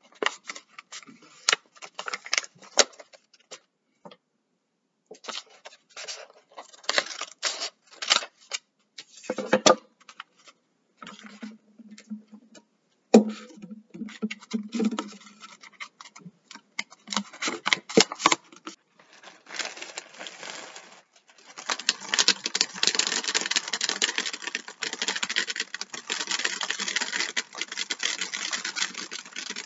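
Dried chickpeas pouring from a bag through a rolled-paper funnel into a plastic water bottle: a dense, continuous rattle starting about two-thirds of the way in. Before it, scattered paper rustling and clicks as the paper funnel is rolled and taped.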